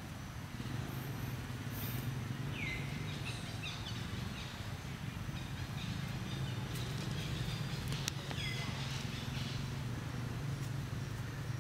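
Outdoor ambience: a steady low rumble, with two short falling bird calls, one a few seconds in and another about six seconds later.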